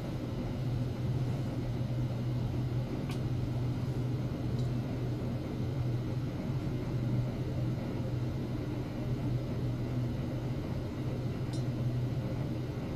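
A steady low hum over a faint hiss, with a few faint ticks.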